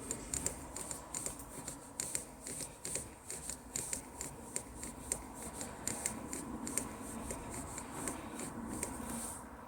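Suzuki Jimny gearstick rattling: a run of irregular sharp clicks and ticks over the low rumble of the running vehicle.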